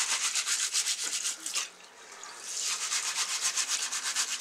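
Soaked whole black urad dal and red kidney beans being rubbed hard between the hands in water in a glass bowl, a fast, gritty rasping of wet grains against each other. It stops briefly a little before halfway and then starts again. This is the scrubbing wash that cleans the soaked lentils before cooking.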